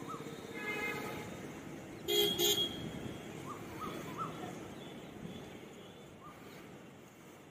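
Two short vehicle horn toots about two seconds in, over a steady outdoor traffic hum, with a few faint short chirps.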